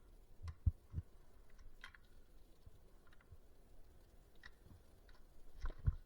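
Scattered clicks and light knocks of hand tools and parts being handled while a computer monitor's circuit board is stripped, with a couple of louder knocks about a second in and one near the end.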